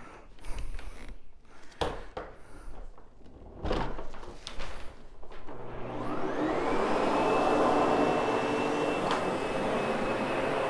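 A few knocks and clicks, then a Sebo X8 upright vacuum cleaner starts about halfway through. Its motor whine rises in pitch as it spins up, then runs steadily as it grooms the freshly cleaned, damp wool rug and picks up loose fibres and dog hair.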